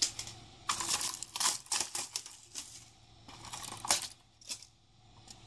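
Thin 3D-printed plastic infill being pulled and snapped out of a print: irregular sharp clicks and crackles, with a few louder snaps.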